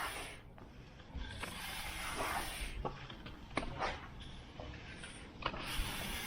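Broom sweeping sand across block paving to fill the joints: a few scratchy strokes with small ticks of grit.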